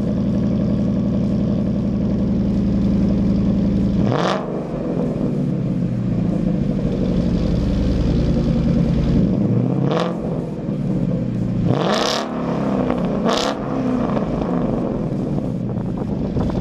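2015 Mustang GT's 5.0 V8 idling through a Ford Racing Sport exhaust, with four short throttle blips: one about four seconds in and three close together in the second half, each rising and dropping straight back to idle.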